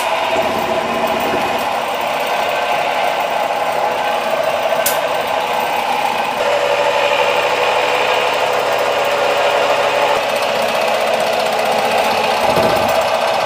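Restored 1962 FROMMIA 187 scroll saw on its first test run: its electric motor, V-belt drive and reciprocating blade mechanism run loud and steady. The machine vibrates hard because it is not bolted down to the bench. It starts abruptly and runs down when switched off at the end.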